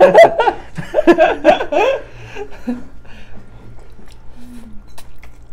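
Two women laughing for about two seconds, then quieter sounds of them chewing and eating noodles.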